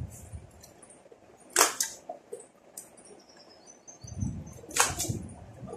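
Paper and a thin white cardboard box being handled and folded: two short, sharp crackles, about one and a half seconds in and again near the end, with softer rustling and handling in between.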